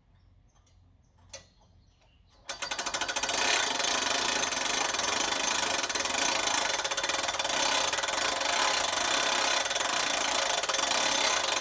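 A power tool starts up about two and a half seconds in and runs steadily with a fast rattle, after a few faint clicks.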